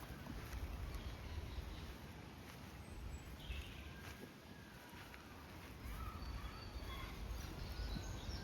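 Outdoor ambience: a steady low rumble with faint, short bird calls, more of them in the second half.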